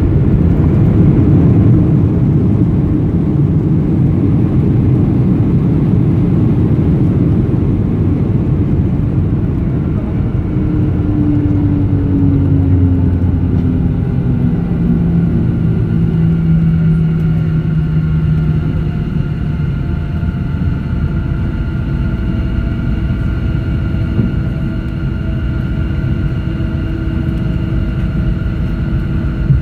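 Boeing 737-700's CFM56-7B engines and wheels heard from inside the cabin during landing rollout: a loud, steady rumble, with an engine tone that falls in pitch around the middle as the engines spool down. Toward the end the rumble is a little quieter, with a steady engine whine over it as the jet slows on the runway.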